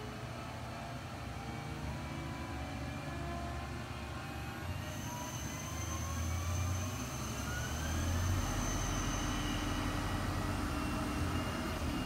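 CNC lathe machining a metal spinning-top workpiece, facing off its outside: steady spindle and cutting noise. About four seconds in, a whine rises in pitch over several seconds.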